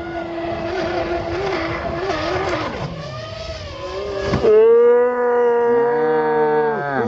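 Brushless RC speedboat's electric motor whining at full speed, its pitch wavering. About four and a half seconds in, as the boat leaves the water, the whine steps up to a higher, louder steady tone.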